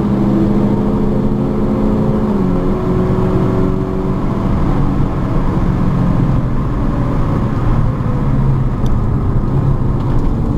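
Opel Astra F GSI's 2.0-litre eight-valve four-cylinder engine running under load, heard from inside the cabin, its pitch dropping about two and a half seconds in and then holding steady, over road and wind noise.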